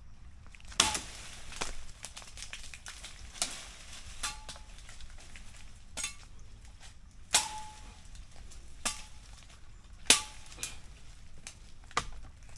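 Machete chopping into a tree branch: about ten sharp strikes at irregular intervals of roughly a second, several with a brief metallic ring from the blade.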